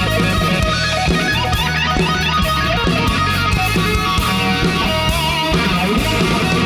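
Live rock band playing an instrumental stretch without vocals: a lead electric guitar with bending notes over a steady bass and drums.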